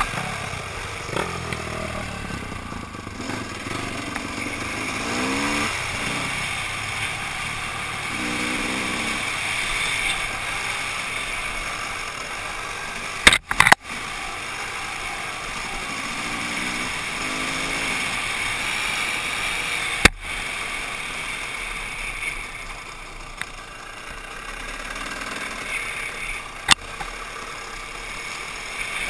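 Dirt bike engine running under way on a trail, its revs climbing several times as the rider accelerates. A few sharp knocks come about halfway through and again later.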